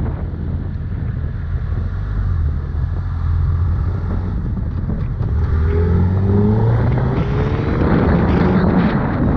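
Suzuki Hayabusa's inline-four engine under way, running low and steady at first, then rising in pitch and getting louder from about halfway through as it accelerates.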